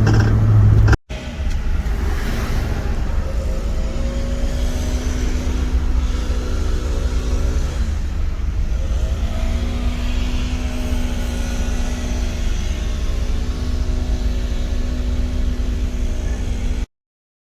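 Volkswagen car driving, engine and road noise heard from inside the cabin; the engine note climbs, drops about eight seconds in and climbs again. The sound cuts off abruptly near the end.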